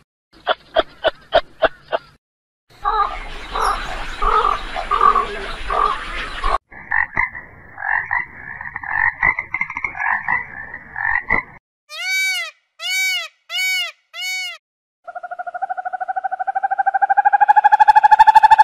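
A run of animal calls dominated by frog croaking: rapid even pulses in the first two seconds, then several seconds of pulsed croaking calls, four short calls that rise and fall in pitch, and from about three seconds before the end a long call that rises steadily in pitch and grows loud.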